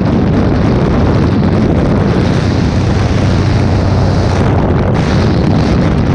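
Propeller aircraft in flight heard through its open jump door: loud wind blasting the helmet camera's microphone over a steady low engine and propeller hum.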